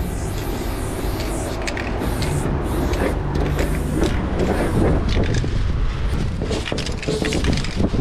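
Aerosol spray paint can hissing in a run of short strokes onto a plywood board, over a steady low street rumble.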